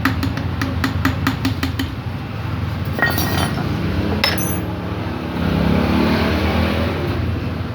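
Metal hand tools and engine parts clinking during a motorcycle engine teardown: a quick run of clicks, then two ringing metal clinks, over a steady low hum.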